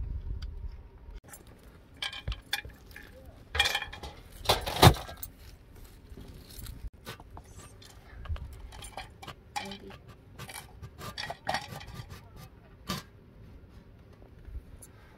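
A metal cooking pot and a stainless steel tray clinking and knocking together as the pot is handled and set upside down on the tray, with scattered small clinks and scrapes; the loudest knock comes a little under five seconds in.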